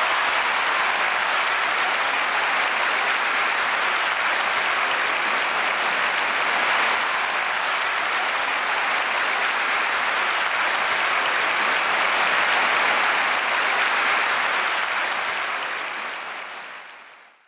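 Large crowd applauding steadily, then fading out over the last couple of seconds.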